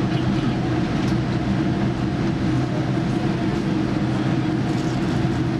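Steady cabin noise inside a Boeing 787-9 whose General Electric GEnx engines run at idle while it taxis, an even rumble with a few low steady tones.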